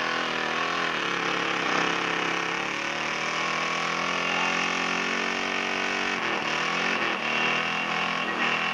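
Pickup truck's engine running steadily under load as it churns through a mud pit. Its pitch holds level and wavers briefly about six seconds in.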